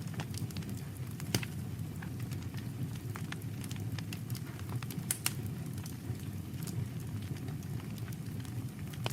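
Campfire burning: the wood crackles with scattered sharp pops over a steady low rumble. The loudest pops come about a second in and again about five seconds in.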